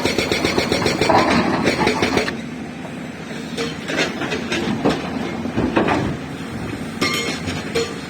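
Hydraulic rock breaker on an excavator hammering stone in rapid repeated blows, stopping about two seconds in. After that the machine's engine runs on with scattered knocks and clanks of rock.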